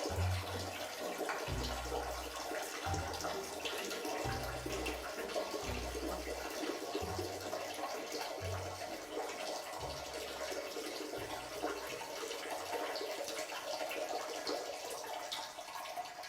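Steady rushing noise like running water, with a low bass note pulsing about every second and a half until about twelve seconds in.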